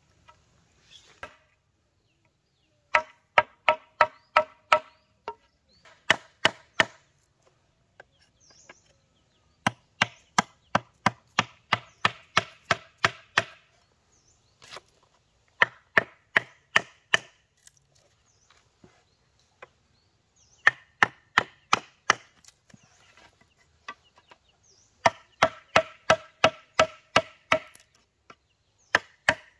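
Repeated blows on bamboo during crib building, in runs of several quick ringing strikes, about three a second, with short pauses between the runs.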